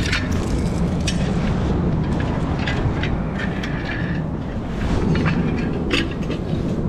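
A steady low rumble with scattered short clinks and scuffs as a mooring rope and anchor chain are handled on a concrete bridge piling.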